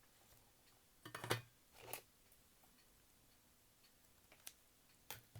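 Small clicks and scrapes of hands and a tool working on a cassette player's circuit board during disassembly: a sharp cluster of clicks about a second in, a softer scrape just before two seconds, and a few light ticks near the end.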